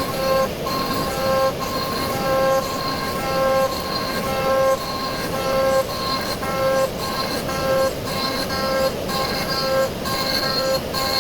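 CNC router milling away the excess inlay plug material: a steady cutting noise with a pitched machine whine that comes and goes about once a second as the machine makes its back-and-forth passes.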